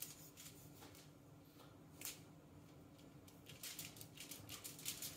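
Faint scratchy strokes of a knife cutting fat off a raw brisket: a single stroke about two seconds in, then a run of quicker strokes near the end.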